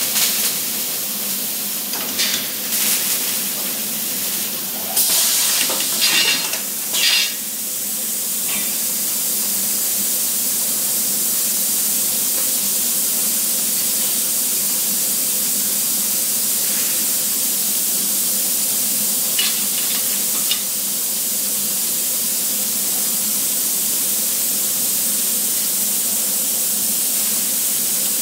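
Arc welding sizzling and hissing steadily, with a few louder crackling bursts in the first eight seconds.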